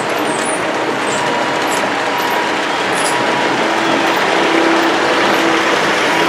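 Gauge 0 model trains rolling along the layout's track: a steady rushing rumble of metal wheels on rail, joined a little past halfway by a humming tone as a model electric locomotive passes close.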